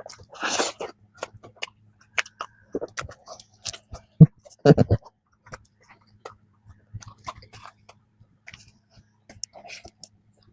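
Close-up mouth sounds of eating a flaky strawberry danish: crisp pastry layers crackling and crunching with each bite, then chewing. There is a loud crackly crunch about half a second in, and the loudest bites and mouth sounds come around four to five seconds in.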